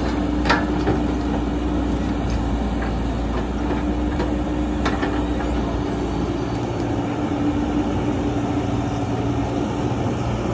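Caterpillar 312 hydraulic excavator's diesel engine running steadily under load as it works, with a steady hum over the engine note and a few short sharp knocks as the bucket digs into tree stumps and roots, about half a second in and again around five seconds.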